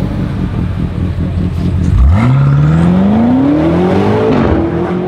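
BMW M5 F90's twin-turbo V8 accelerating hard. It pulls off with a low rumble, then about two seconds in the revs climb steadily, drop briefly at an upshift, and climb again.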